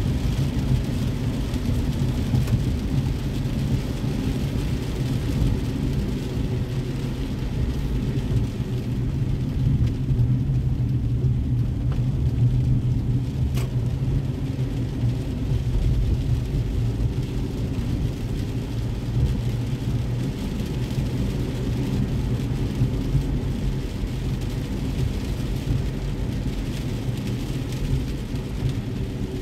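Steady low rumble of a car's engine and tyres on wet road, heard from inside the cabin while driving in rain.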